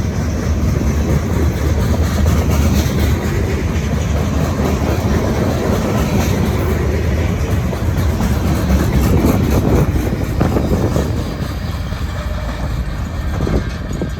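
Long freight train's cars rolling past, a steady rumble with the clatter of steel wheels over the rail joints.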